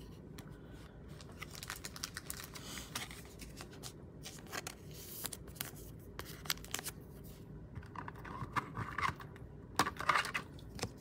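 Trading cards being handled and slid into rigid plastic top loaders: scattered light clicks, taps and scrapes of card against plastic, with a short louder flurry about ten seconds in.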